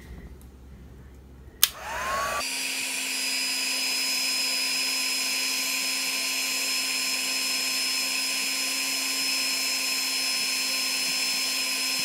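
A handheld craft heat tool is switched on with a click about two seconds in, whines up to speed, then blows steadily, heating the singe-pen drawing so the lines darken.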